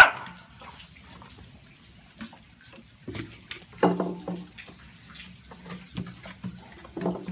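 Puppies' claws scrabbling, scratching and clicking against a wooden patio table as they jump up at it. There is a sharp loud sound at the very start and a brief pitched sound about four seconds in.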